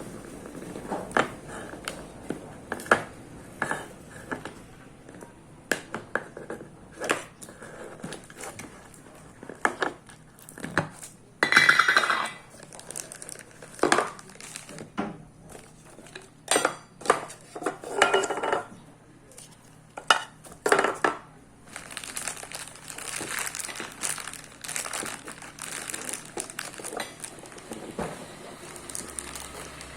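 Hands handling a wristwatch and its packaging, with a string of irregular clicks, knocks and light clinks mixed with crinkling of plastic wrapping.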